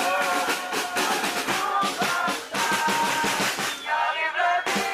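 Protest marching drums beating a steady rhythm, with whistles and a voice shouting through a megaphone over them.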